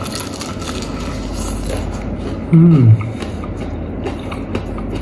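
A person eating crispy fried chicken: biting and chewing, with faint crunches and clicks over a steady background hum. A short hummed "mm" comes about two and a half seconds in.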